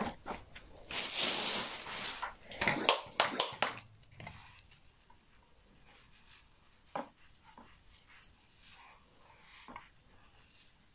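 Loose, dry peat substrate rustling and crunching as a gloved hand presses and stirs it in a plastic tub, in two bursts during the first four seconds. After that, only a few faint scratches and ticks as a tool pokes into the substrate.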